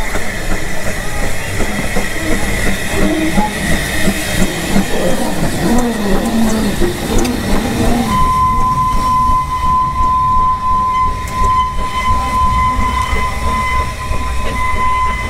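Narrow-gauge steam locomotives moving slowly through the station, a Hunslet-built 1893 engine among them, with steam hiss and rattling wheels. About eight seconds in, a steady high-pitched tone starts and holds for about seven seconds.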